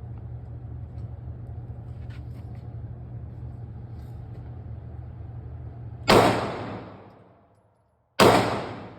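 Two gunshots about two seconds apart, each loud and sharp and ringing out for about a second, over a steady low hum.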